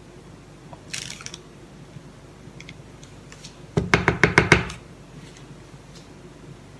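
A brief scrape, then a quick run of about nine sharp knocks of the loaf pan and wooden spoon as cake batter is spread and levelled in the pan.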